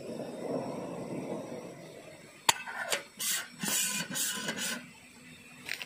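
The metal lid of a camping cook pot being set onto the pot on a gas camping stove. About two and a half seconds in there is a sharp clink, then a second or so of clattering and scraping as the lid settles, and one light clink near the end. Before the lid goes on there is a low rubbing noise.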